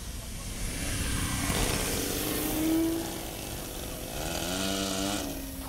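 Engine of a radio-controlled model Cessna 188 Ag Wagon airplane in flight, its buzz swelling twice as it passes. The second time its pitch rises briefly before it drops away.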